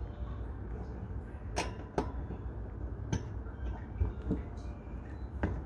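Hamster eating seeds: small, irregular crisp clicks and cracks, about half a dozen in a few seconds, over a low steady rumble.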